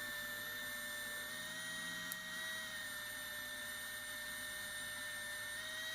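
3Doodler 3D pen's small drive motor running steadily as it feeds ABS plastic through the hot nozzle, a thin even whine.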